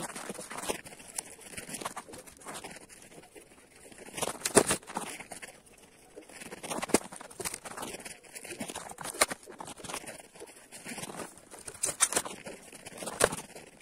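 Long wooden slab offcuts being dropped and knocked into place on a wooden sawhorse: a run of irregular wooden clatters and knocks, the loudest about four and a half seconds in. The chainsaw is not yet running.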